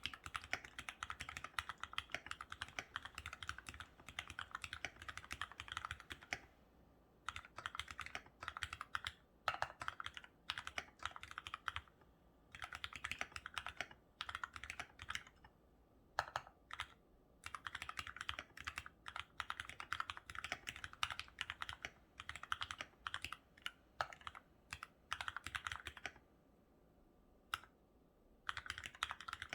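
Typing on a COX CK87BT mechanical keyboard with lubed, retooled Cherry MX Black linear switches and Cherry-profile keycaps. Fast runs of keystrokes are broken by short pauses, with a longer pause near the end.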